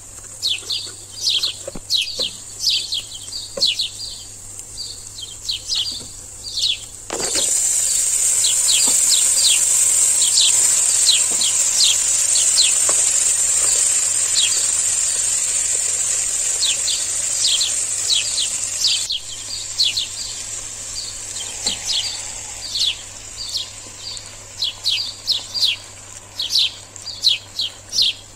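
Frozen peas and diced carrots hitting hot ghee in a nonstick pan: a sudden thud about seven seconds in, then a steady sizzling hiss for about twelve seconds that cuts off abruptly. Birds chirp all the while, short falling chirps a few times a second.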